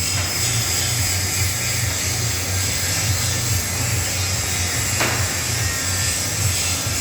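Steady workshop machine noise: a constant low hum under an even hiss, with one sharp click about five seconds in.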